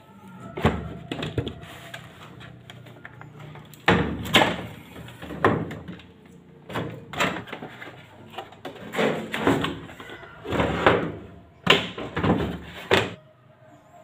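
Plastic knocks and clunks as the control panel and top cover of a Polytron Zeromatic top-loading washing machine are handled, fitted back into place and pressed down: a series of sharp thuds at irregular intervals, the loudest in the middle and latter part.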